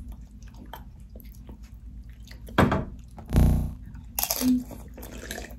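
Close-miked crunching and chewing of loaded nacho tortilla chips, with a few louder gulps and mouth sounds midway as ginger ale is drunk from a can.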